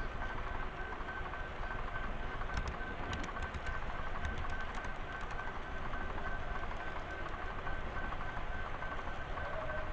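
Model train carrying an onboard camera, running along the layout's track: a steady rumbling hum with a thin steady whine over it, and a run of light clicks a few seconds in.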